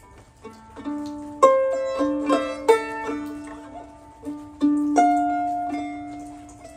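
A-style mandolin played solo with a pick: a slow, sparse melody of single notes and two-note chords, each left to ring and fade out. The playing comes in about half a second in, with the sharpest pluck a second or so later.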